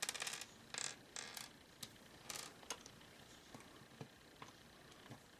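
Small plastic Lego bricks rattling as they are handled, then a series of sharp clicks as 1x1 bricks are pressed together and stacked.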